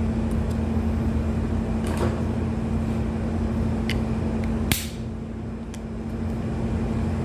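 A steady mechanical hum with one held tone over a low rumble, broken by a few short sharp clicks and knocks, the loudest a little under five seconds in.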